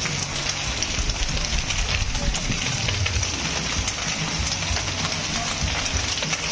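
Pool fountain jets spraying water onto the pool surface, a steady splashing hiss, with a low hum underneath.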